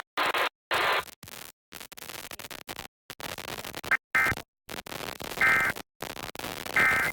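Emergency Alert System end-of-message data tones: three short bursts of warbling two-tone digital code, about 1.4 s apart, starting about four seconds in, over crackly radio static that keeps cutting in and out.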